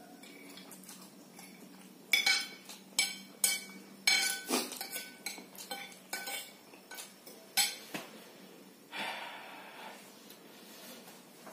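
Metal fork and spoon clinking and scraping against a ceramic plate while noodles are gathered up, a quick series of sharp, ringing clinks. Near the end comes one breathy puff of air out.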